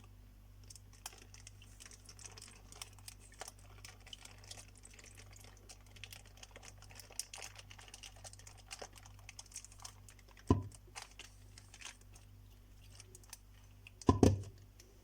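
Plastic ice-cube bags crinkling and ticking faintly as they are handled and filled with lemon concentrate. There is a louder thump about ten seconds in and another near the end.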